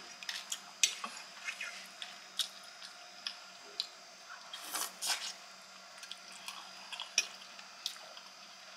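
A person chewing and biting mouthfuls of lasagna: soft, wet mouth sounds broken by irregular sharp clicks and smacks.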